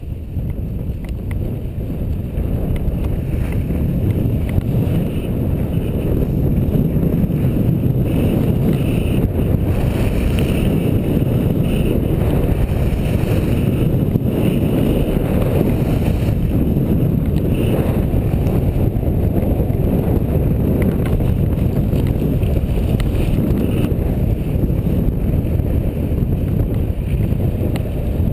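Wind buffeting an action camera's microphone while descending a ski slope at speed, mixed with the hiss and rumble of sliding over packed snow. It builds over the first few seconds and eases off a little near the end as the rider slows.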